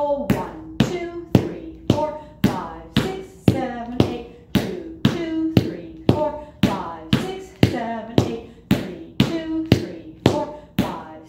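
Tap shoes striking a hard floor in repeated cramp rolls (step, step, heel, heel), giving a steady rhythm of sharp metallic clicks at about two a second.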